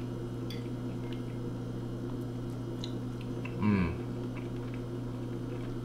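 A person chewing a mouthful of fish and rice, with a few faint clicks of a fork on a plate and a short murmur falling in pitch about halfway through. A steady low hum runs underneath.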